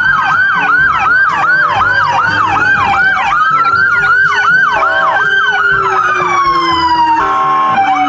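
Several police car sirens sounding together: one in a fast yelp of about three to four rising-and-falling sweeps a second, another in a slower wail whose pitch falls over several seconds. A short blaring tone cuts in near the end.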